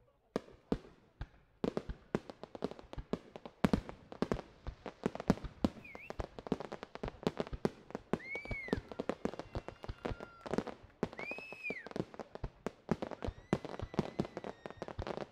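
Fireworks going off in rapid succession: a dense run of bangs and crackling bursts. A few brief high whistles rise and fall over it.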